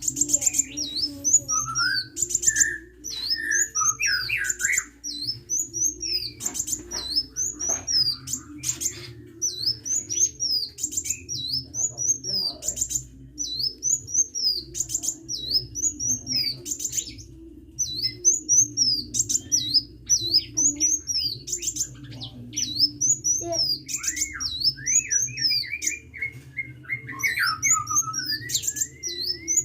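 Sunbird, the cage songbird called 'kolibri' by Indonesian bird-keepers, singing busily: rapid, repeated high chirps, with a lower warbling phrase near the start and again near the end. A steady low hum runs underneath.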